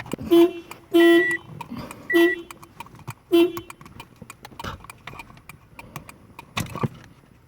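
2006 Toyota Corolla's factory car alarm sounding in short repeated tones, four more pulses that stop about three and a half seconds in as the alarm is disconnected. Faint clicks and knocks follow.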